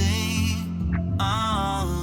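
Background music: a pop song with heavy sustained bass and a gliding melodic line, between sung lyrics.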